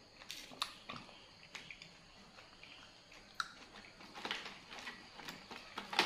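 Close-up eating sounds: chewing on blue swimmer crab, with scattered small clicks and crackles of crab shell being handled.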